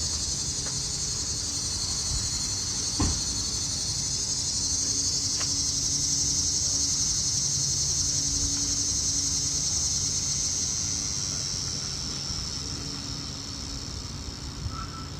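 A steady high-pitched insect drone, swelling through the middle and fading toward the end, with a faint low hum underneath and a single sharp knock about three seconds in.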